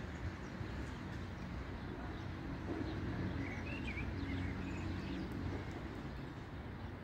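Low, steady rumble of a distant TCDD DE24000-class diesel-electric locomotive's engine as it approaches, with a few bird chirps about halfway through.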